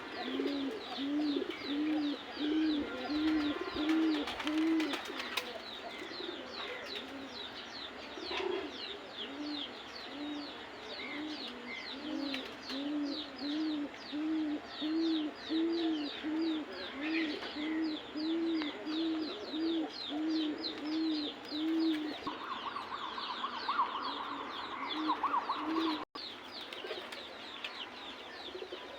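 Domestic pigeons cooing: long runs of repeated low, rounded coo notes, about two a second, which pause briefly a few seconds in and die away a few seconds before the end. A fast, high-pitched chirping repeats steadily behind them.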